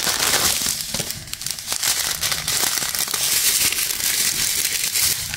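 Small plastic bags of diamond painting drills being handled, crinkling irregularly throughout.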